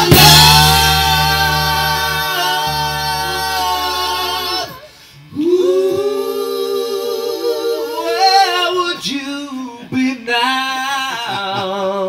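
A band's chord ringing out over a held electric bass note, which stops about four and a half seconds in; then several voices singing together in harmony with hardly any instruments.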